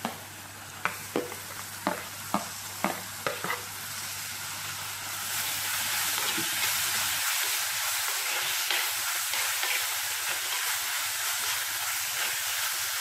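Chopped tomatoes tipped and spooned into an earthenware pot of onions frying in oil, with a quick run of about eight sharp spoon taps. From about five seconds in, a louder steady sizzle as the tomatoes are stirred into the hot oil.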